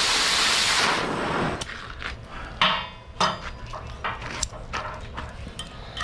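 Oxy-acetylene cutting torch hissing steadily as it bevel-cuts steel plate, shutting off about a second in. Then a scattering of sharp metallic clinks and taps.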